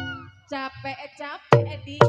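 Betawi gambang kromong ensemble playing live: the drum and struck-key beats drop out for about a second, leaving a high wavering melody line, then the loud struck beats come back in about one and a half seconds in.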